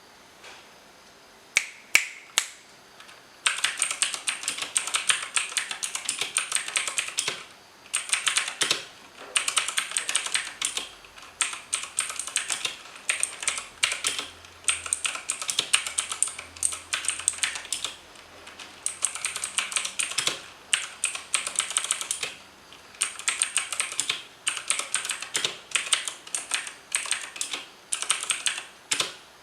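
Typing on a T-Dagger Verde 61-key mechanical keyboard with clicky Outemu Blue switches. A few single keystrokes come first, then fast continuous typing from a few seconds in, with brief pauses every several seconds.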